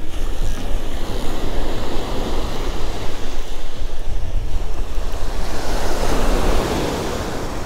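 Ocean surf breaking and washing up the beach, with wind rumbling on the microphone. The wash swells louder around five to seven seconds in.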